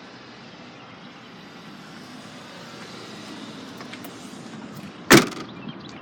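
A car door shuts with one sharp thump about five seconds in, over steady outdoor vehicle noise that swells a little just before it.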